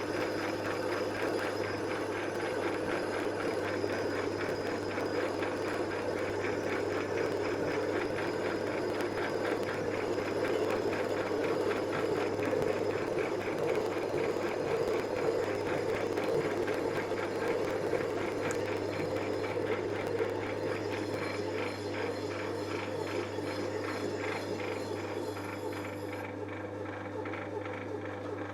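Lathe running with a between-centres boring bar taking a cut in the vertical column bore of a cast base, a steady machine hum with a fine rapid ripple. Its tone changes about three-quarters through and it eases off near the end.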